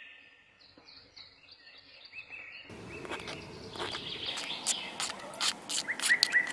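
A small metal hand shovel scraping up and tipping loose sand into a plastic toy trailer, with a rustle of grains and a clatter of little clicks that starts about a third of the way in. Birds chirp faintly throughout, with a quick run of short chirps near the end.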